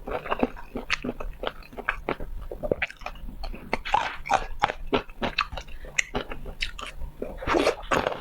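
Close-miked biting and chewing of food: wet, irregular mouth clicks and crunches.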